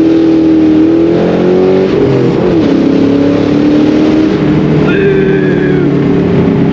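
Ford Mustang engine pulling hard under full throttle after a clutch-dump launch, its pitch dropping about two seconds in as it shifts up a gear and then carrying on under load.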